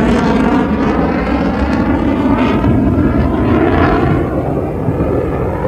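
Airplane flying past at an air show, its engine noise loud and dense, growing duller and easing slightly as it moves away.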